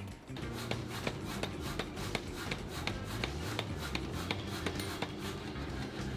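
Power hammer striking hot steel in swage dies in a quick even rhythm of about four blows a second, over a low steady rumble.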